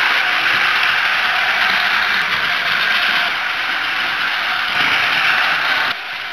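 Battery-powered Plarail toy shinkansen running on plastic track: a steady whir and rattle of its small motor, gears and wheels, dropping suddenly in level near the end.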